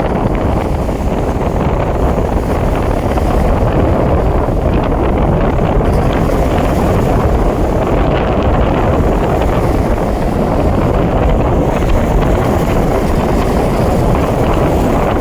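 Strong wind buffeting the microphone in a steady, loud rumble.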